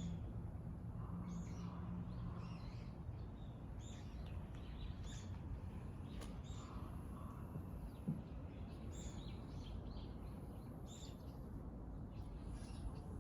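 Small birds chirping on and off, short high chirps over a steady low outdoor rumble.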